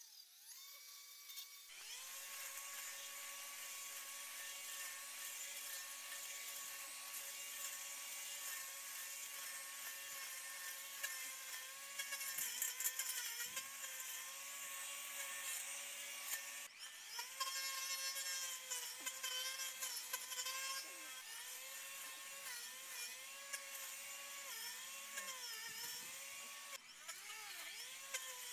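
Ryobi 40V Expandit battery string trimmer running at speed, its electric motor whining steadily over the hiss of the line slashing through tall weeds and grass. The whine dips in pitch now and then as the line bites into thick growth.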